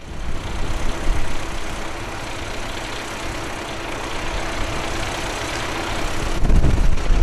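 Kashima Rinkai Railway diesel railcar engine running steadily with a low rumble, the rumble swelling near the end.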